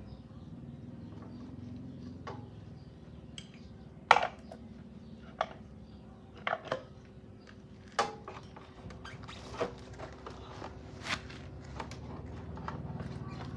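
Metal tools and parts being handled on a workbench: scattered clinks and knocks, about eight separate strikes spaced a second or more apart, the loudest about four seconds in.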